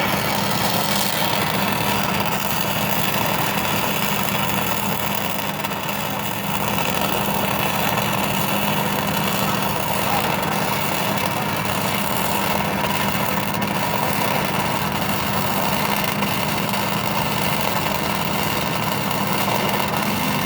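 Flux-cored arc welding on large-diameter steel pipe: a steady, unbroken arc noise with a low hum underneath, dipping briefly about six seconds in.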